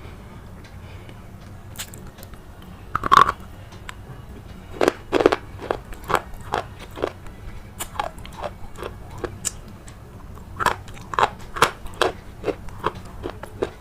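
Sharp, crisp crunches of something brittle: one loud crunch about three seconds in, then irregular runs of crunches from about five to nine seconds and again from about ten and a half to thirteen seconds.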